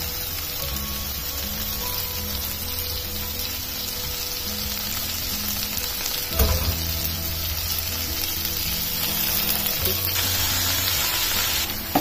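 Chopped radish greens sizzling in hot oil with onions in a frying pan, a steady hiss. There is one knock about halfway through, and the sizzle grows louder near the end as the greens are stirred with a wooden spatula.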